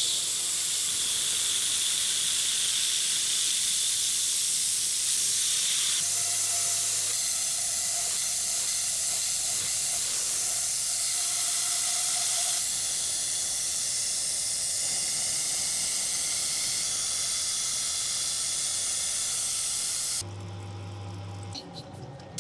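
Metal lathe boring an alloy-steel bushing with a solid carbide boring bar: a steady hissing cut that ends sharply about 20 seconds in, after which the lathe runs on more quietly with a low hum.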